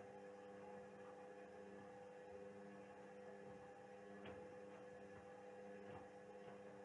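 Indesit WISL 62 front-loading washing machine running early in its wash cycle: a faint, steady hum with a few soft knocks.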